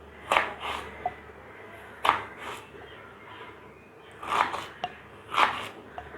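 A knife cutting a peeled raw plantain into pieces: short sharp cutting strokes, mostly in pairs, every second or two.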